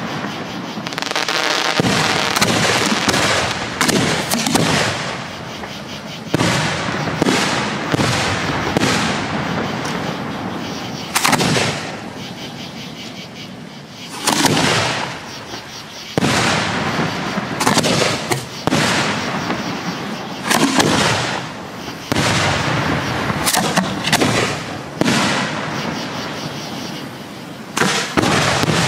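Aerial fireworks shells bursting overhead in an irregular series of sharp bangs, with crackling between the reports and a short lull about halfway through.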